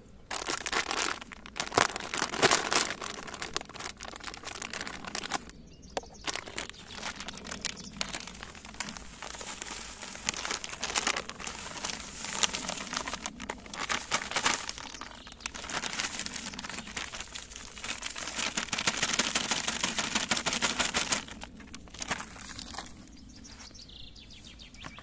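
Dense rustling and crackling as a batch of carp particle bait (hemp, wheat and corn) is worked through by hand. It breaks off briefly about five seconds in and stops a few seconds before the end.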